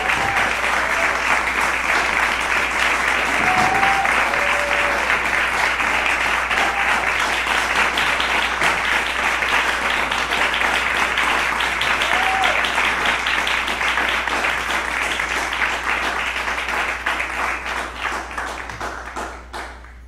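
Concert audience applauding steadily, then dying away near the end, with a few brief calls from the crowd.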